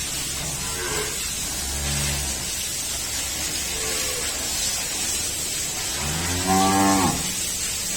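A bovine mooing twice: a shorter, weaker call about a second in and a louder, longer one about six seconds in, over a steady hiss.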